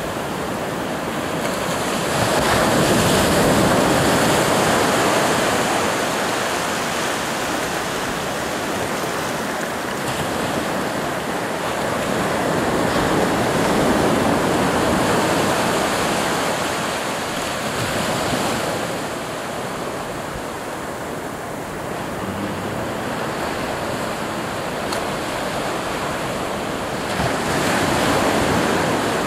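Ocean surf breaking and washing up a sandy beach. A continuous rushing that swells and eases as each wave comes in, loudest a few seconds in and again near the end.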